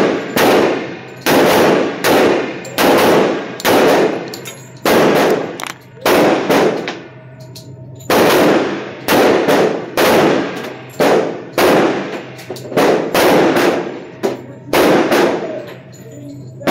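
Handgun shots fired in a steady string, about twenty in all, spaced a half-second to a second apart, with a short break near the middle. Each shot rings out in the echo of an indoor range.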